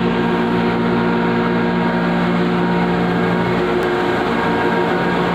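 Red chilli powder grinding plant running: motor-driven grinding machinery giving a steady, even hum with a dense mechanical rush over it.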